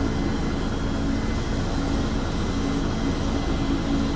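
AgustaWestland police helicopter running on the ground with its main rotor turning, a steady turbine and rotor noise ahead of take-off.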